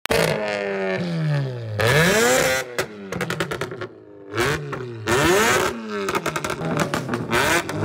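An engine revved hard several times, its pitch climbing and falling with each blip. Between the revs come rapid runs of sharp exhaust crackles and pops.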